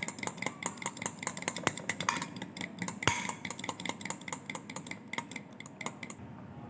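Metal spoon beating a thick mayonnaise-and-ketchup dip in a glass bowl, clicking and scraping against the glass in quick, steady strokes. The stirring stops just before the end.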